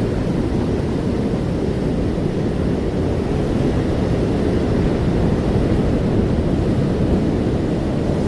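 Ocean surf: a steady, deep rush of waves with no breaks, swelling a little past the middle.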